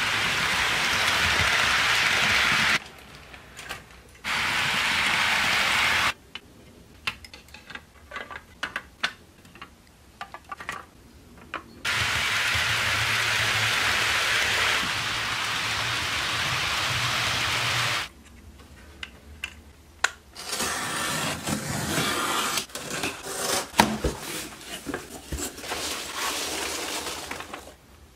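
HO scale model train running on track: a steady whirring hiss of motors and wheels that starts and stops abruptly several times, between which come stretches of irregular clicking and clatter.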